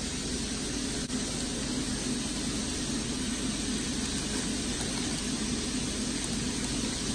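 Steady background noise: an even hiss with a low hum beneath it and no distinct events.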